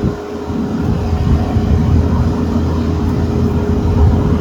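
Kubota diesel equipment engine running hard under load during a pull to free a stuck skid steer, its low rumble building up about half a second in, with a steady whine throughout.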